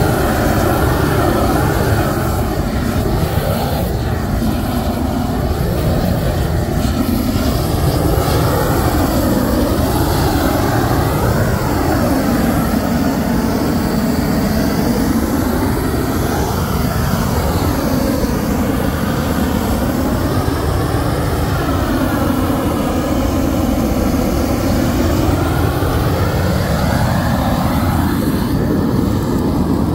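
An engine running continuously, its pitch rising and falling every second or two over a steady rumble.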